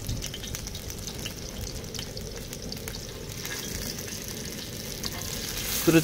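Salmon belly frying in oil on a griddle pan: a steady sizzle with fine crackling.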